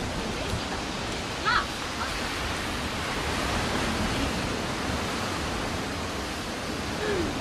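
Steady wash of surf on a shingle beach, with a short distant call about a second and a half in and a brief voice near the end.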